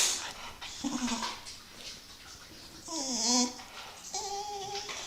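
A dog making odd whining vocal sounds: a short low note about a second in, a wavering call that dips and rises about three seconds in, then a steady held note near the end.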